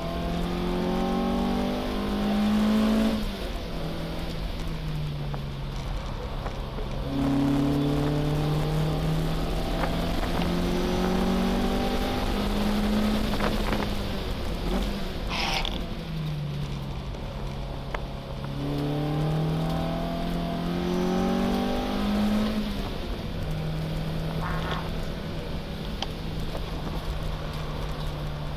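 BMW 02's four-cylinder engine heard from inside the cabin at racing speed, revving up repeatedly and dropping back in pitch at gear changes and when easing off for corners. A short high-pitched noise comes about halfway through.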